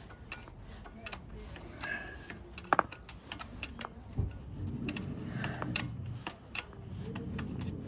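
Scattered light clicks and taps of hand tools working on a motorcycle's rear brake caliper and its bolts, with a sharper double click about three seconds in.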